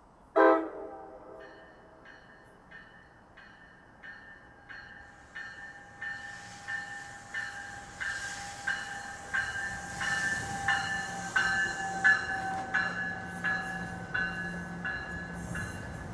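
NJ Transit commuter train approaching and running past, its bell ringing about one and a half strokes a second and growing louder, over a rising rumble and hiss of the train. A brief, loud horn toot sounds about half a second in.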